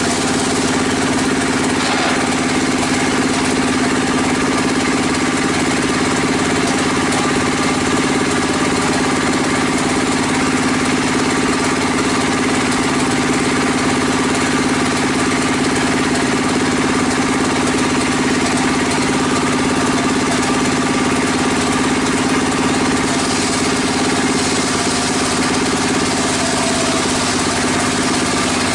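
Engine-driven bench circular saw running at a steady speed while a timber beam is ripped lengthwise: a constant engine hum with the blade's cutting noise over it.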